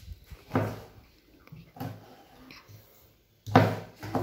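Kitchen knife chopping tomato on a plastic cutting board: a few separate knocks, the loudest near the end.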